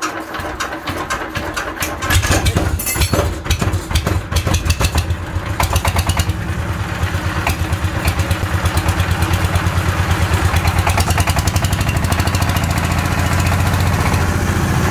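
Changchai 12 hp single-cylinder diesel engine being cranked, catching about two seconds in, then running unevenly before settling into a steady, even beat. The seller takes this sound as the sign of an engine in very good condition.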